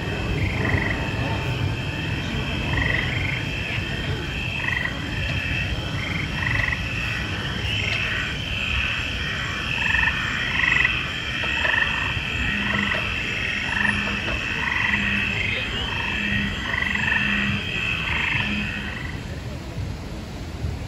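Frogs croaking in a regular rhythm, a call about every two-thirds of a second over a steady high trill and a low, steady rumble. The croaking stops a couple of seconds before the end.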